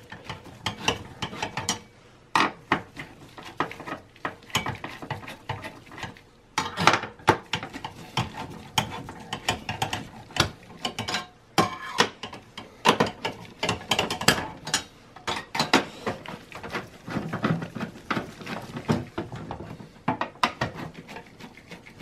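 Phillips screwdriver unscrewing the CPU heatsink screws in a Dell Precision T5600: a long run of quick, irregular clicks and small metal scrapes as the screws are turned out.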